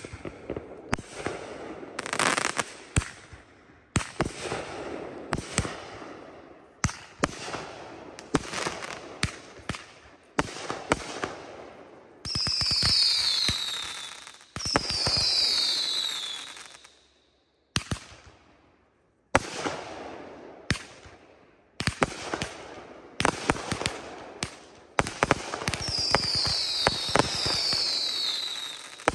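Consumer aerial fireworks going off in a rapid series of sharp launch and burst reports with crackle between them. Twice, a pair of whistles falls in pitch: about twelve seconds in and again near the end. The bangs pause briefly just past the middle.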